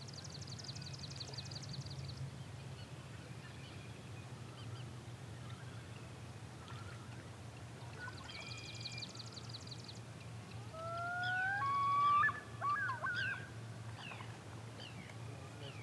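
Geese honking: a short run of loud, rising honks starting about 11 seconds in. Before them a songbird gives a rapid high trill twice.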